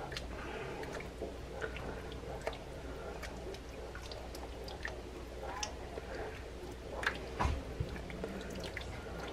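A wooden spoon stirring thick, chunky gravy in a pan as starch slurry is dribbled in. It makes soft, wet stirring sounds with scattered small clicks, over a faint steady low hum.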